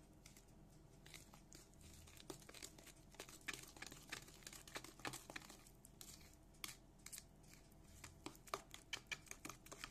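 Faint crinkling of a plastic bag of powdered sugar being handled, with scattered light clicks and crackles.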